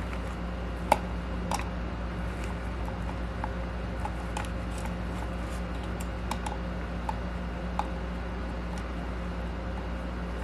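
Small scattered clicks and taps of a screwdriver and screws against the plastic motor mounts, with one sharper click about a second in, over a steady low hum.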